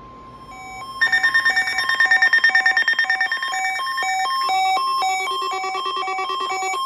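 Loud electronic beeping tone sequence: several steady pitches layered and pulsing on and off in a quick, even rhythm, like a ringtone-style alert tune, starting about a second in and cutting off abruptly near the end. A fainter single steady tone plays before it starts.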